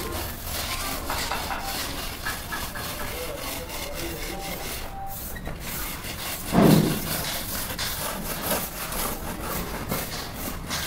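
Repeated scraping of a flat strip drawn along the fresh cement mortar joints of a brick wall, smoothing and finishing the joints. One louder thump comes about two-thirds of the way through.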